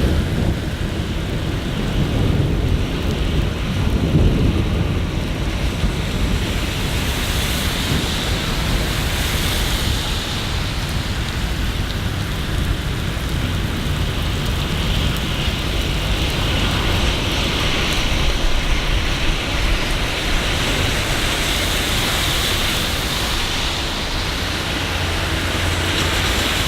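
Steady rain with a deep, continuous rumble underneath, swelling slightly about four seconds in.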